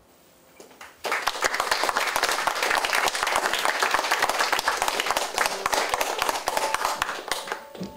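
Theatre audience applauding at the end of a song: a few scattered claps, then full applause from about a second in, dying away near the end.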